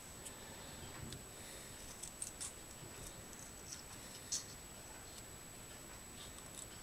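Scissors snipping through thin stainless steel sheet: a few faint, scattered cuts, the clearest about four seconds in.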